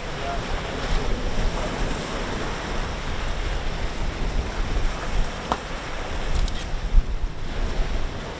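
Wind buffeting the microphone: a steady rushing noise with low rumbling gusts, and a few faint clicks in the second half.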